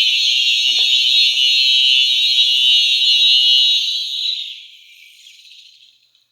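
Two Simplex electronic horn strobes (a 4903-9242 and a 9254) sounding a loud, steady alarm tone, which fades away over about two seconds starting around four seconds in, drooping slightly in pitch: the odd wind-down these electronic horns make when their power is cut.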